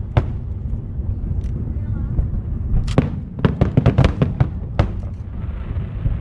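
Fireworks exploding as a run of sharp bangs, a lull of about two seconds, then a rapid cluster of bangs about three seconds in, over a steady low rumble.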